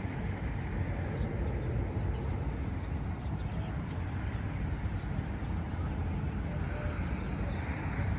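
Street ambience: a steady low rumble of traffic with short high bird chirps scattered over it.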